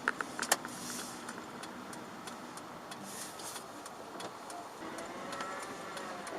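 Chevrolet Aveo 1.4 petrol car heard from inside the cabin while driving in the rain: steady road and engine noise with scattered sharp ticks, a few of them close together in the first half-second.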